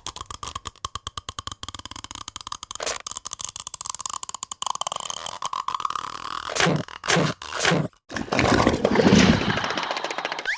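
Cartoon sound effects: a fast run of clicks and scraping for the first half, then a few sharp swishing strokes and a loud noisy burst near the end.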